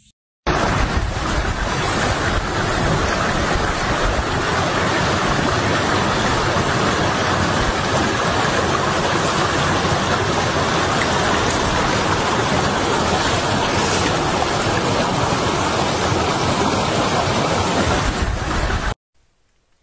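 Loud, steady rushing noise with a water-like character. It starts abruptly about half a second in and cuts off abruptly shortly before the end.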